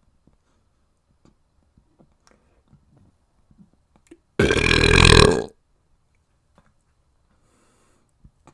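A person lets out one loud belch lasting about a second, about halfway through. Faint small clicks come before and after it.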